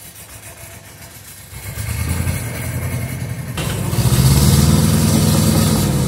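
Riding lawn tractor's small engine running as it works to roll a pickup truck back. It grows louder from about a second and a half in, then revs up and eases back down near the end.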